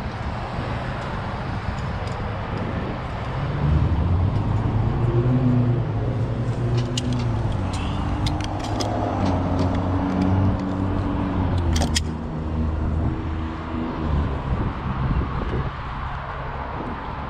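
Wind rushing over the microphone, with a low engine drone from a passing motor vehicle that swells about three seconds in and fades away near the end. A few sharp metallic clicks from a climbing carabiner come around the middle.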